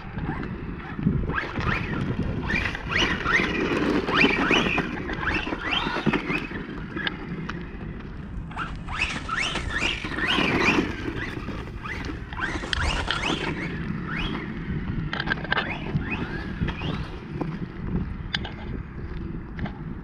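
Electric radio-controlled monster truck driving on dirt, its motor whining up in pitch again and again in bursts of acceleration, over wind noise on the microphone.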